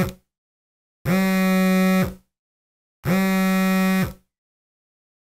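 Smartphone alarm going off: a harsh buzzing tone about a second long, repeating every two seconds. It stops after the last buzz, about four seconds in, as the alarm is dismissed.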